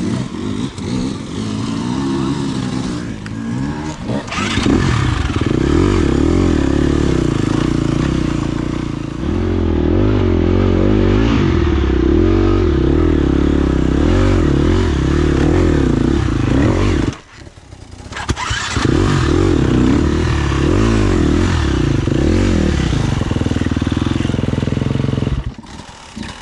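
Enduro dirt bike engine revving hard and unevenly under load on a muddy trail climb, its pitch rising and falling with the throttle. The engine sound cuts off suddenly about seventeen seconds in, picks up again a second or so later, and drops to a lower level near the end.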